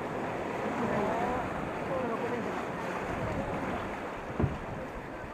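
Rushing white water of river rapids churning alongside a wooden boat. About four seconds in there is a single short thump.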